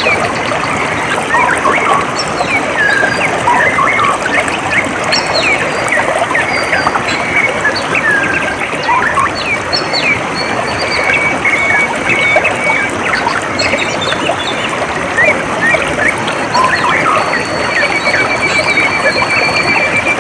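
Water trickling steadily, with many birds chirping in short calls over it. A rapid trill at one steady pitch sounds twice, around the middle and again near the end.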